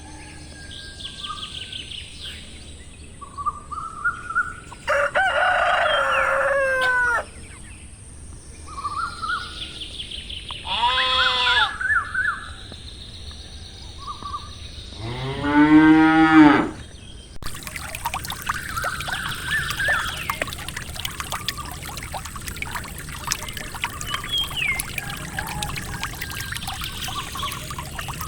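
Farm-animal calls: several separate bleating and mooing calls, the longest and deepest (a cow's moo) about two-thirds of the way in, with short bird chirps between them. Near two-thirds of the way through the calls stop and a steady hiss with faint chirps takes over.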